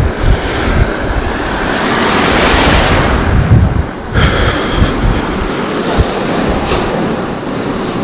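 Wind buffeting the microphone in irregular low thumps over a steady rushing noise of surf and road traffic, which swells about two to three seconds in.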